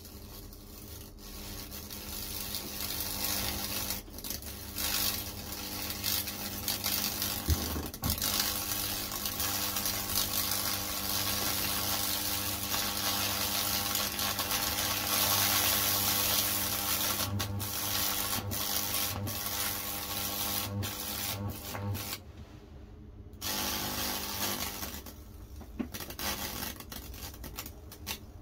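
Fractal burning on a wet cedar board: high-voltage current arcing through the soaked wood with a steady crackling sizzle over an electrical hum. The current cuts out about three-quarters of the way through for a second or so, then the sizzle starts again.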